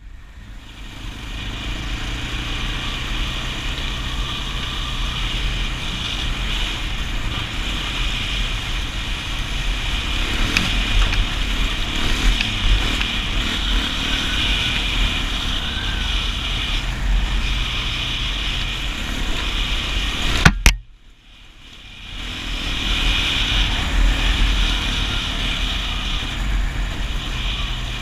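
Kawasaki KFX400 ATV's single-cylinder engine running steadily as the quad rides along a dirt trail. About two-thirds of the way through, a sharp click is followed by a brief drop-out, and the sound fades back in.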